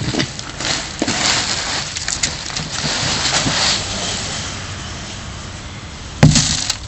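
Potting soil being tipped out of a large planting bucket, a rough rushing and crumbling that swells over the first few seconds and then thins out, with a sharp thump near the end.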